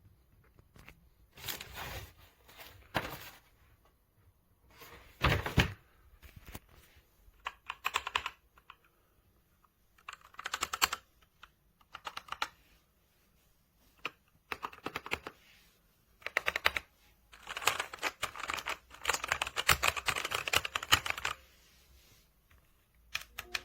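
Typing on a KOORUI full-size mechanical keyboard: bursts of rapid key clicks a second or two long, separated by short pauses. There is one louder, deeper clatter about five seconds in and a longer unbroken run of typing near the end.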